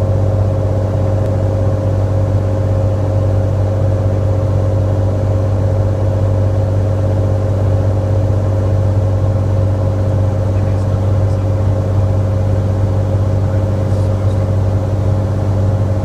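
Cirrus SR22T's turbocharged Continental six-cylinder engine and propeller, heard from inside the cockpit as a steady, even drone.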